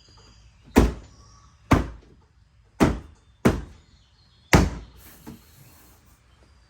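Tesla Model X interior door panel being smacked to snap its clips into the tab holes: five sharp knocks roughly a second apart, with a fainter one near the end.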